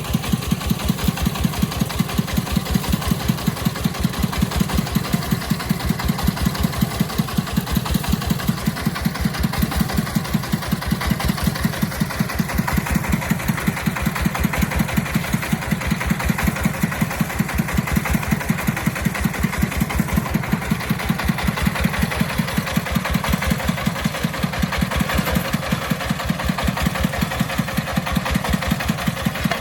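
Agricultural timber-hauling vehicle's engine running steadily with a rapid, even thumping beat.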